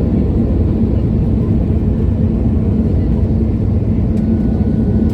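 Steady low roar inside the cabin of an Airbus A320neo in flight, from its engines and the airflow, with a faint steady hum over it.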